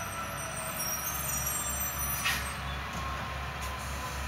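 Freightliner recycling truck's diesel engine idling with a steady low, slightly pulsing drone, and a short hiss of air from its air brakes about two seconds in.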